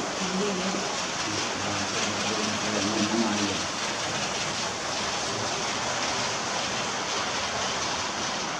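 Steady, even rushing room noise, with a person's voice heard faintly during the first three seconds or so.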